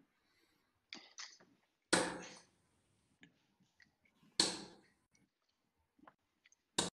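Three steel-tip darts thudding into a dartboard, about two and a half seconds apart. The first two ring on briefly after the hit, and the last is a short sharp crack. Lighter ticks come about a second in.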